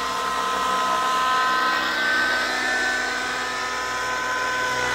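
Nitro radio-controlled helicopters, a Gaui NX7 and an Align T-Rex 700 Nitro, flying at head speed: a steady high engine whine with several tones over a rushing rotor noise, swelling slightly as a helicopter passes.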